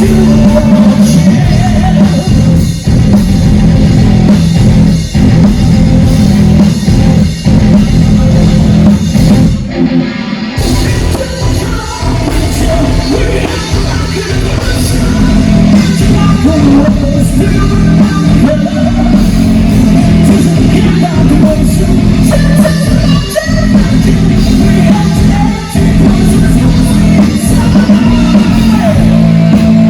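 Loud rock music with a singer, a drum kit and guitar. The treble cuts out for about a second around ten seconds in.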